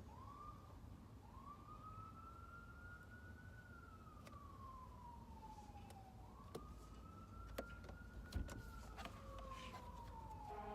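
A faint emergency-vehicle siren wails, its pitch slowly rising and falling about every five seconds. A few light clicks and knocks come in the second half, the loudest a little past eight seconds in.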